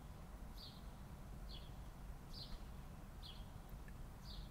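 A bird chirping faintly, short high calls repeated about once a second, over a steady low background hum.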